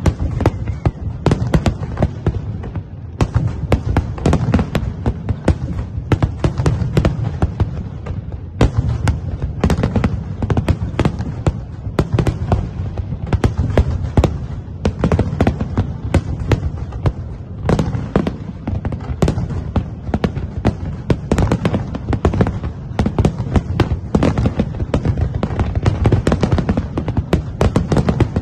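Fireworks display: a dense, continuous barrage of aerial shells bursting, many bangs a second over a constant low rumble.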